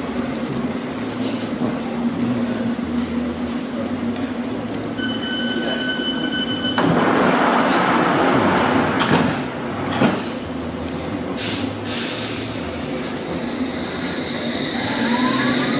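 London Underground S Stock train standing at the platform with a steady hum. About five seconds in, a steady door-closing warning tone sounds briefly, followed by a louder stretch of noise and a few knocks as the sliding doors close. Near the end the traction motors start a rising whine as the train begins to pull away.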